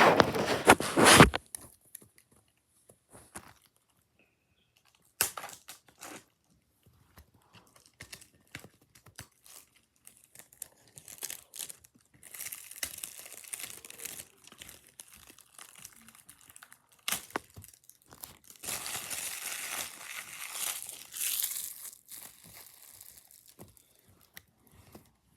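Packaging being crinkled and torn open in irregular spells: a loud burst at the start, then longer stretches of rustling and crackling later on.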